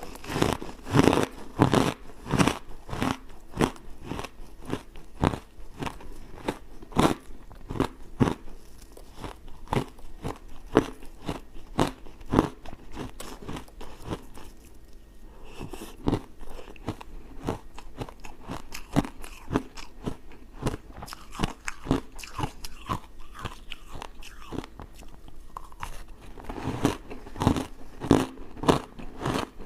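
A person biting and chewing hard refrozen ice chunks dusted with matcha powder: a dense run of sharp crunches. The bites thin out about halfway through and come thick and loud again near the end.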